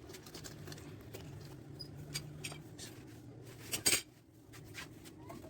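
Scattered light clinks and taps of tools and pipe parts being handled during plumbing work, with a louder cluster of knocks about four seconds in.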